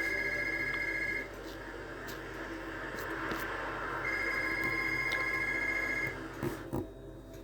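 Telephone ringing with a trilling two-tone ring. One ring ends about a second in and a full ring of about two seconds follows at about four seconds in. A couple of soft thumps come near the end.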